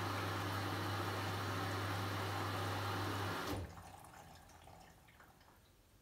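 Bush WMNB712EW washing machine filling with water for a rinse: water rushes in through the inlet valve with a steady low hum, then cuts off sharply about three and a half seconds in. Water keeps trickling and settling, fading away.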